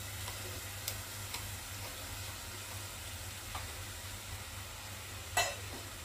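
Sliced vegetables (yam, carrot, green beans, raw plantain) sizzling gently in coconut oil in a pot, with a few small clicks. A sharper clink comes near the end.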